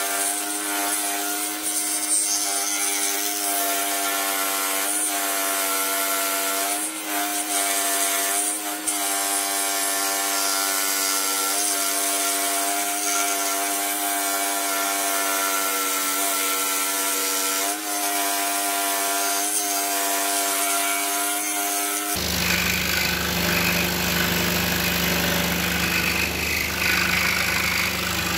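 Pégas Precision Scroll Saw running with a steady hum and its blade sawing through a wooden board, cutting the outer contour of fretwork letters, with occasional sharp ticks. About three-quarters of the way through the sound changes abruptly to a lower, rougher running.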